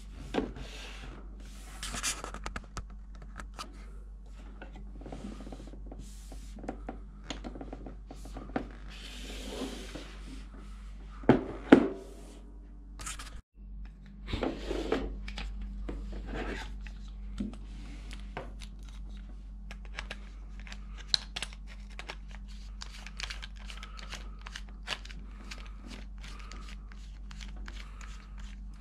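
Hand-handling noise of a vintage Shimano DUX spinning reel: scattered clicks, knocks and rubbing of metal and plastic parts, with two sharp knocks about eleven to twelve seconds in, then a long run of small quick clicks in the second half. A steady low hum lies under it.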